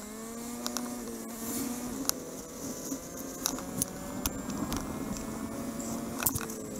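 Motorcycle engine running steadily at road speed, with a few sharp clicks and rubs from a fabric vest pressed against the camera.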